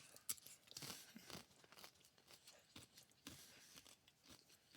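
Faint crunching and chewing of a crispy fried cream cheese wonton, with many small irregular crackles as it is bitten and chewed.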